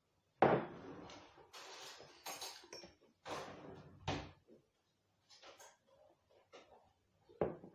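A glass tumbler set down on a table with a thump about half a second in, followed by sips and swallows of water and a few lighter knocks and clinks.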